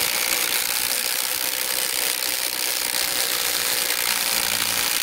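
Two cordless impact drivers, a Kobalt XTR 24V and a Milwaukee M18 Fuel Gen 3, both on their high setting and hammering at full speed as they drive long 8-inch screws. They make a steady, loud rattle that keeps on unchanged.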